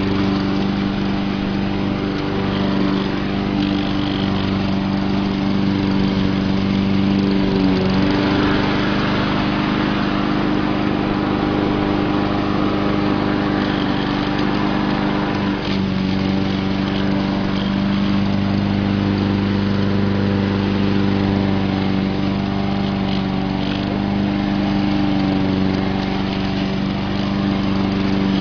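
Poulan Pro push mower's Honda overhead-cam engine running steadily while mowing. Its pitch dips briefly twice, about eight seconds in and again around the middle.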